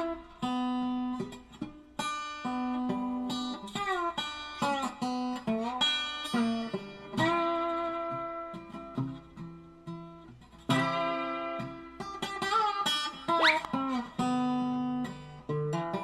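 Background music: a plucked acoustic guitar tune with sliding notes.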